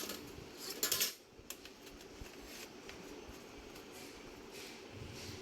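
Handling noise from a laptop being set up: a short burst of scuffing and clicks about a second in, then a few faint clicks over a low steady hum.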